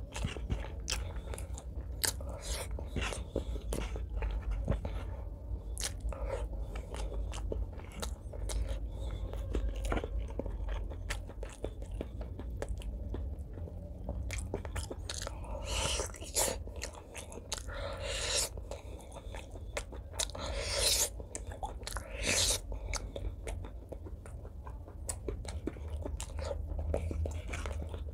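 Close-miked eating sounds: wet chewing, lip smacks and mouth clicks while eating pork curry and rice by hand. A few longer, louder wet sounds come a little past the middle.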